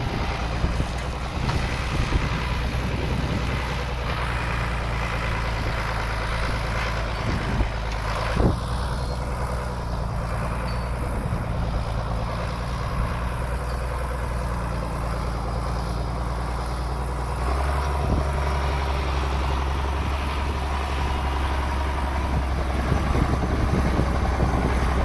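Large farm tractor's engine running steadily while it works a burn pile, getting louder about two-thirds of the way through as it takes on more load, with an occasional knock.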